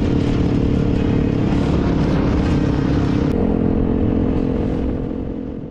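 A motor vehicle's engine running steadily, with a heavy low rumble, fading out near the end.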